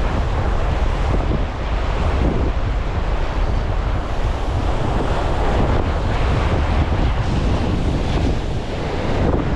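Strong wind buffeting the microphone with a steady low rumble, over ocean waves surging onto shore rocks.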